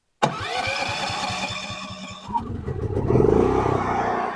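Pulsar PGD105TiSCO tri-fuel inverter generator starting on propane: the electric starter cranks with a whine and a rapid, even pulse, the engine catches about two seconds in and runs up loud, then eases down near the end.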